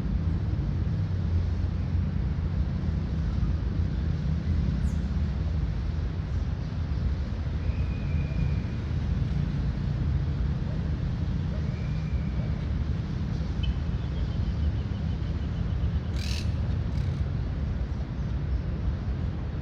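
Outdoor park ambience: a steady low rumble, with a few short bird calls over it — brief whistles, a short trill, and a sharp chirp near the end that is the loudest of them.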